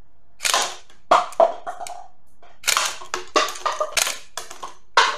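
Toy FN 509 blowback pistol firing shot after shot: about seven sharp, irregularly spaced snaps of the slide cycling. Some shots have a short rattle after them as shell casings are ejected.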